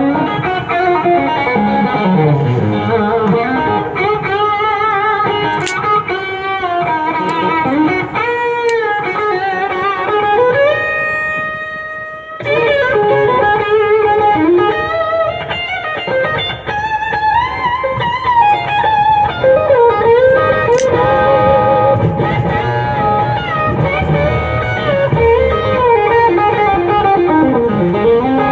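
Electric guitar, a 1954 Fender Stratocaster, playing single-note lead lines with string bends and vibrato. About halfway through, a chord is held for about two seconds, then the playing breaks off briefly and starts again.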